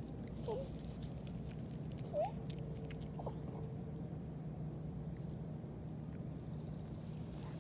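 Raccoon dog (tanuki) giving three short, high squeaky whines, the second, about two seconds in, the loudest. Faint ticks and a steady low hum lie underneath.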